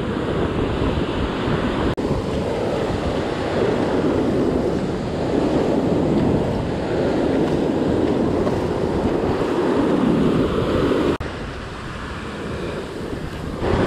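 Ocean surf breaking and washing up the beach, swelling and easing in slow surges, with wind buffeting the microphone.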